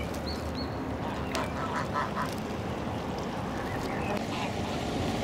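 Waterfowl calling: a couple of short high calls, then a quick run of about five short calls about a second and a half in, over steady low background noise.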